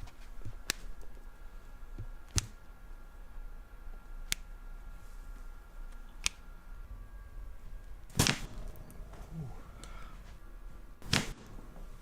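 Joints cracking during a chiropractic adjustment: a few short, sharp clicks, then two loud pops, the loudest about eight seconds in and another about three seconds later.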